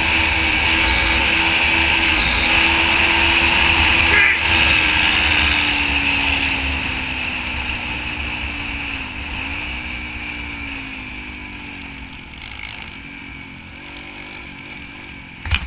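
Single-cylinder four-stroke engine of a Yamaha TTR125 dirt bike running at a steady pitch under heavy wind rumble. After a few seconds the engine note slowly falls and the sound gets quieter as the bike eases off and slows. A sharp knock comes at the very end.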